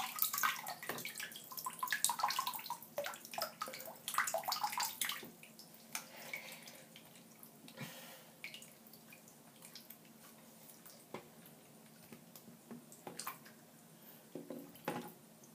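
Water splashing and sloshing in a filled bathroom sink as a toy walkie-talkie is pushed under and moved about. It is busiest in the first five seconds, then settles to faint drips and small clicks.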